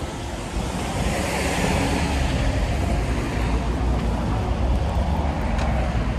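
Street traffic noise with a low rumble of wind buffeting the microphone, steady throughout.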